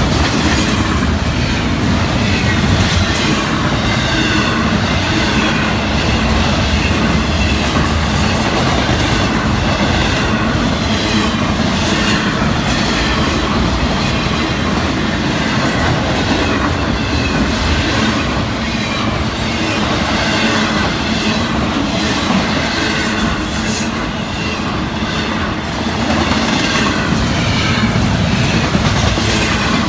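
Florida East Coast Railway intermodal freight train rolling past at close range: a steady, loud rumble and clatter of steel wheels on the rails, with a faint wavering wheel squeal and scattered sharp clicks.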